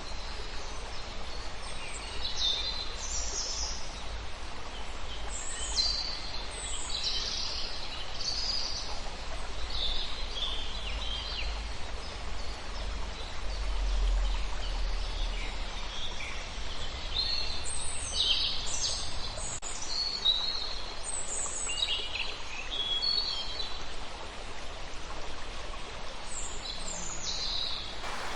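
Wild birds chirping and calling, many short high calls and trills following one another, over a steady background hiss with a low rumble.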